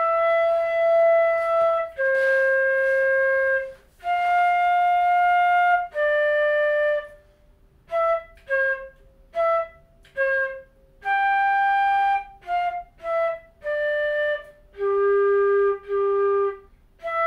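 Concert flute playing a melody of separate notes: a few long held notes, then a run of shorter ones with short breaks between them, ending on two lower notes played twice.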